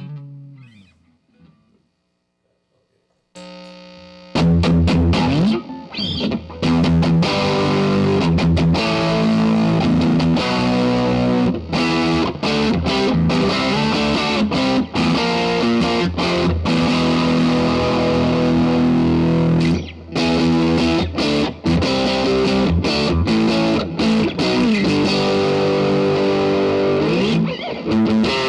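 Squier Stratocaster electric guitar played through a Vox AD-100VT XL modelling amp on its distorted channel. A note slides down in pitch and dies away, then after a short pause loud distorted chords and riffs start about four seconds in.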